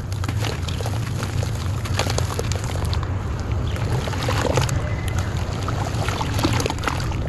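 Hands crumbling and kneading chunks of dry clay in a basin of water: wet sloshing and squelching with many small crackles as the clay breaks up into mud. A steady low hum runs underneath.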